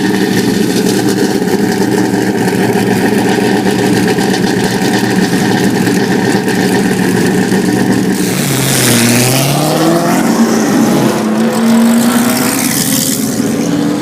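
Race car engines running at a steady, held idle for about eight seconds. Then several engines rev, their pitch rising and falling over one another as the cars move off.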